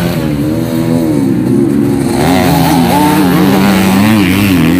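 Dirt bikes racing on a dirt track, two or more engines at once revving up and down under the throttle, climbing higher about halfway through.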